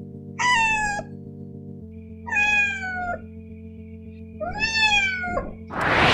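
Kitten meowing three times, each meow a high cry that falls in pitch, over a low steady music drone. A loud rushing whoosh starts near the end.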